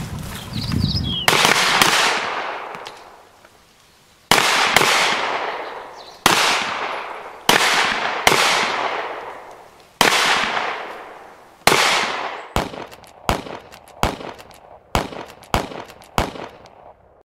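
Gunshots from rifles and pistols, each crack ringing out with a long echo that fades over a second or more. Single shots come a second or two apart, then near the end quicker shots about every half second.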